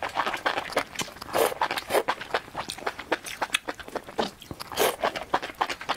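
A person slurping and chewing strands of enoki mushroom in chili broth: an irregular run of quick mouth clicks and smacks.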